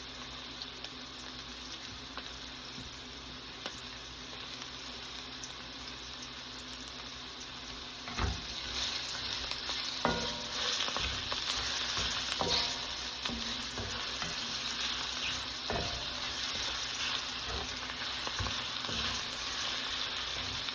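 Mushrooms sizzling in a hot skillet of olive oil and chicken drippings as they are sautéed to release their moisture. The sizzle grows louder about eight seconds in, and a utensil knocks against the pan several times while they are stirred.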